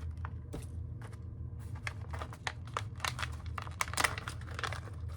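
A bag of popcorn being torn open and handled: a run of sharp crinkling crackles, densest about three to four seconds in.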